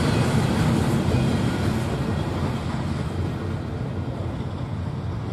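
Rumble of a freight train of hopper cars rolling on the rails, fading steadily as the train moves away.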